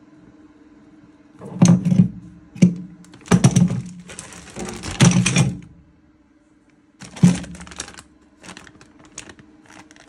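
Tumble dryer parts being handled: bursts of clicking, clattering and scraping, the longest about three to five seconds in, over a steady low hum.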